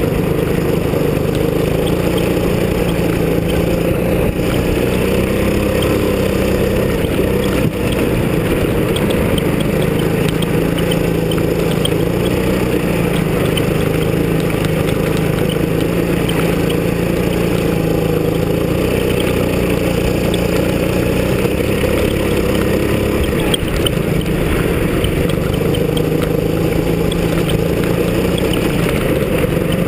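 Go-kart engine running hard, heard from on board the kart, its pitch rising and falling a little as the throttle changes through the corners.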